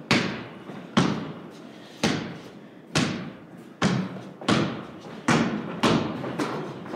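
Basketball dribbled on a wooden plank floor, each bounce a sharp thud that echoes through the large hollow barn loft. About one bounce a second at first, quickening in the second half.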